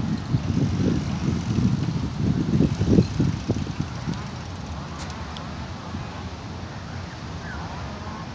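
Wind buffeting the microphone and the rumble of a bicycle rolling along a paved path, dropping to a quieter steady outdoor hiss about four seconds in as the riding stops.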